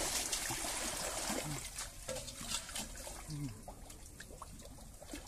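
Pond water splashing and sloshing around a man wading in chest-deep, loudest at the start and settling to a softer trickling and lapping.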